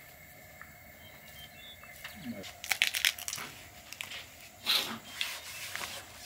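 Close crinkling and rustling in a few short bursts, loudest about three seconds and five seconds in.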